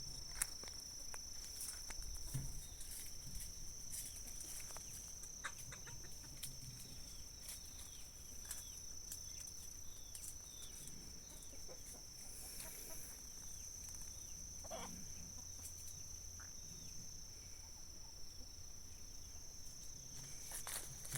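Chickens clucking softly now and then, among scattered light clicks, over a steady high-pitched tone.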